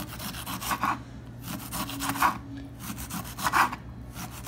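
A kitchen knife sawing through a head of cabbage on a wooden cutting board, repeated rasping strokes as the cabbage is shredded thin.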